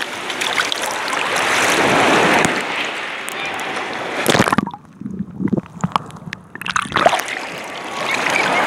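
Shallow seawater sloshing and splashing close by. It drops away briefly about halfway through, leaving a few small ticks and clicks, then picks up again.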